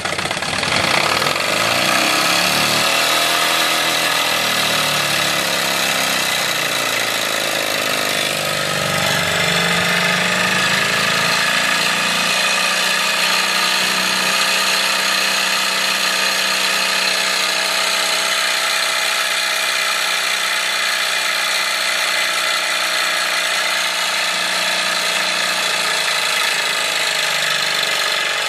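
Wilesco D24 model steam engine running fast, belt-driving a stepper-motor generator: a steady mechanical whine of many tones that wavers in pitch for about the first ten seconds, then holds steady. No exhaust chuff beat is heard; the engine is not chuffing.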